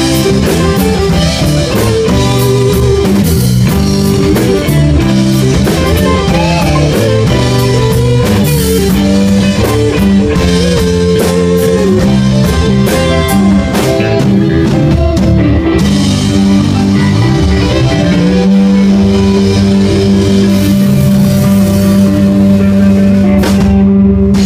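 Rock band playing, with electric guitar, bass and a drum kit, ending with a chord held for the last several seconds.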